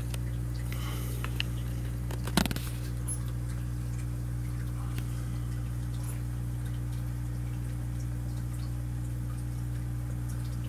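Steady low electrical hum from aquarium equipment, with a single sharp knock about two and a half seconds in and a few faint ticks.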